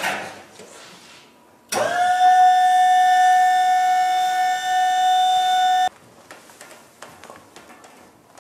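A loud siren-like tone swoops up quickly at the start, holds steady for about four seconds and cuts off suddenly. Faint clicks and rustles follow.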